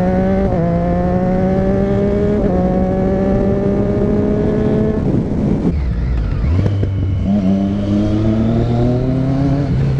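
Motorcycle engine pulling under throttle, its note climbing steadily for about five seconds. Around five seconds in the throttle closes and the note drops away, then it picks up and climbs again.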